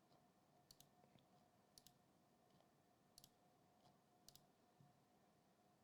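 Four faint computer mouse clicks, each a quick double click, about a second apart, pressing the randomise button again and again.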